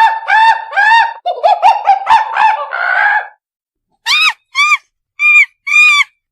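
Monkey calling: a rapid run of high-pitched, rising-and-falling calls for about three seconds, then after a short pause four separate arched calls.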